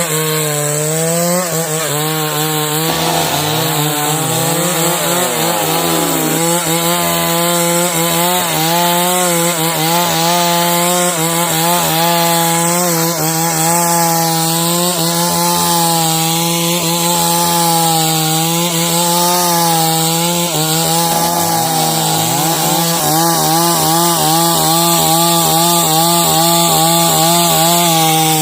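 Two-stroke chainsaw running steadily under load as it saws lengthwise through timber to make beams. Its engine pitch wavers slightly up and down as the chain cuts.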